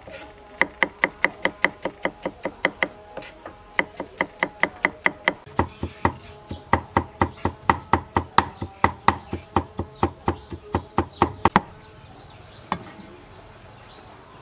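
Cleaver mincing raw meat on a thick wooden chopping board: rapid, even chops about five a second, with two short pauses. The chopping stops about three-quarters of the way through, and one last chop follows a second later.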